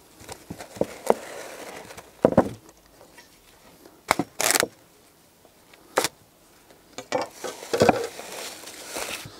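Plastic cling film crinkling and rustling in short irregular bursts, with scattered ticks, as it is pulled from the roll and pressed around a glass bowl.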